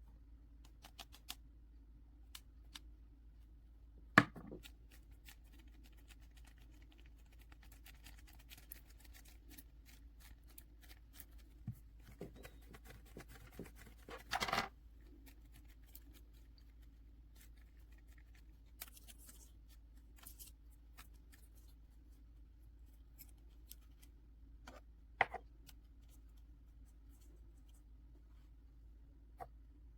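Quiet hand-crafting sounds from working with air clay: scattered small taps and clicks, a sharp click about four seconds in and again near 25 seconds, and a brief scratchy rustle a little before the halfway point.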